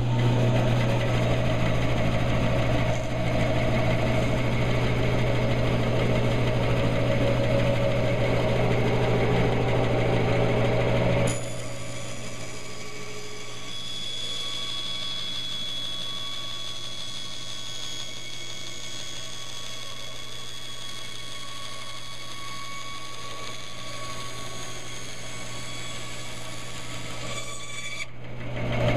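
Bandsaw running with a steady motor hum. About eleven seconds in the sound changes abruptly to a quieter, higher whine as the blade cuts into a block of basswood, and the heavier hum returns near the end.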